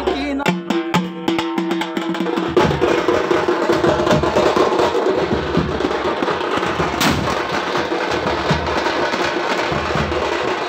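Several parai frame drums beaten fast with sticks, a dense clattering funeral beat for an oppari lament. A steady held tone sounds over the drums during the first two seconds, and there is a single sharp crack about seven seconds in.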